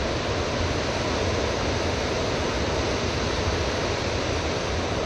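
Steady rushing noise of river water and wind on the microphone, even throughout with no distinct events.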